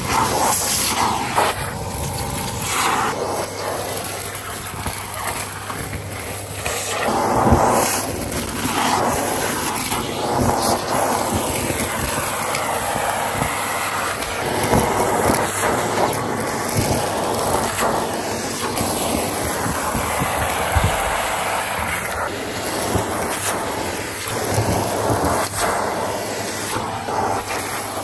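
Shark PowerDetect Pet vacuum cleaner running with its crevice tool on a carpeted stair, the suction rushing and changing in pitch as the nozzle moves, with brief rattles of grit and debris being sucked up.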